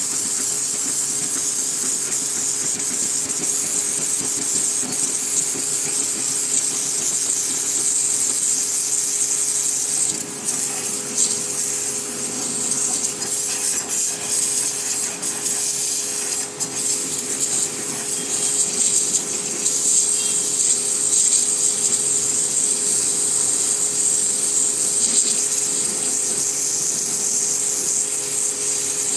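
Electric pressure washer running steadily: a motor hum under the hiss of the water jet spraying. The spray hiss dips briefly about ten seconds in and again a few seconds later.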